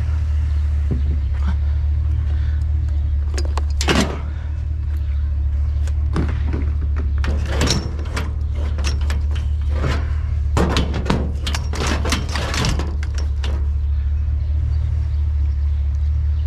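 Vehicle engine idling steadily, with a series of knocks and clanks from items being handled and loaded; the sharpest knock comes about four seconds in, and a quick run of them follows about ten to thirteen seconds in.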